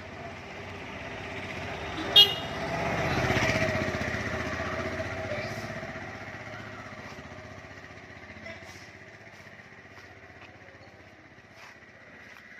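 A motor vehicle, likely a motorcycle, passes by, growing louder and then slowly fading away, with a brief horn toot about two seconds in.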